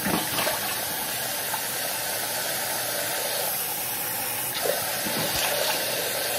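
Tap water running steadily into a sink, with a few short splashes as hands scoop water onto a face.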